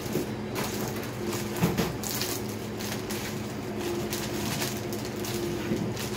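Thin plastic carrier bag rustling and crinkling as it is opened and handled, a run of irregular crackles.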